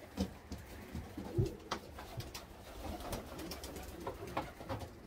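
Domestic pigeons cooing softly, with scattered short clicks and knocks and one louder low thump about a second and a half in.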